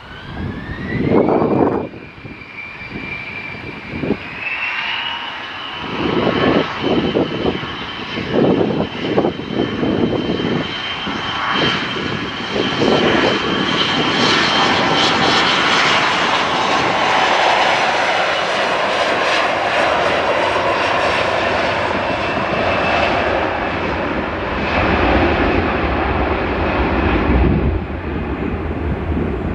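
Jet airliner's engines spooling up, the whine rising in pitch over the first few seconds and then holding steady. The engine noise grows loud, peaks around the middle and fades near the end, with wind gusting on the microphone.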